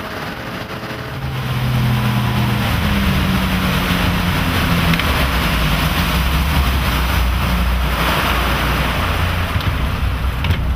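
Twin Volvo Penta 4.3L GXi V6 sterndrive engines running the cabin cruiser under way, over a rush of wind and water past the hull. The engine note climbs and the sound grows louder about two seconds in.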